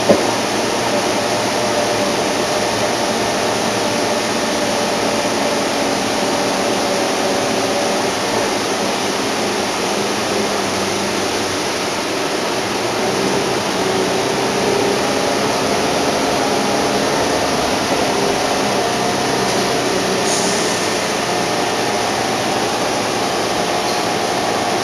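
Cabin sound of a NABI 31-LFW CNG transit bus under way: the Cummins L Gas engine and ZF automatic transmission running steadily, with a few faint tones slowly rising and falling as the speed changes, over road and air-conditioning noise. A short knock right at the start.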